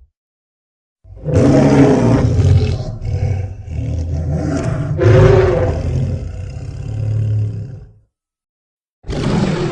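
Fictional hybrid dinosaur roar sound effect, edited together from animal and movie-monster roars: one long, deep roar starting about a second in, swelling again midway and fading out after about seven seconds. A second roar begins near the end.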